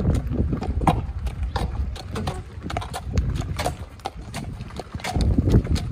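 Shire horse's hooves clopping on gravel as it walks pulling a cart, in an uneven run of sharp clicks, over a low rumble of the cart's wheels on the gravel that grows louder near the end.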